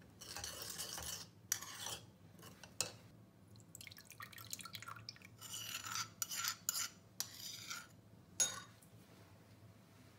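Metal spoon scraping and clinking against a stone mortar and a ceramic bowl as chili-garlic sauce is stirred and scraped out into soy sauce. Irregular scrapes of varying length, with a few sharp clinks.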